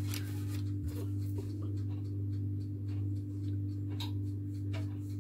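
Kitchen knife slicing through a log of rolled puff-pastry dough and touching the stone worktop: a run of light, irregular clicks and scrapes. A steady low hum sits under it.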